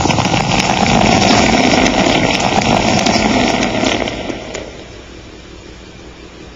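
Beer fizzing and pouring into a glass: a dense crackling hiss of bursting bubbles, which fades out about four and a half seconds in to a low steady hiss.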